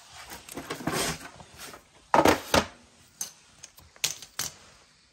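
Small metal parts of a brake line lock being handled on a concrete floor: an aluminium solenoid and brass fittings knock and click against the floor, with rustling in between. The two loudest knocks come close together about two seconds in.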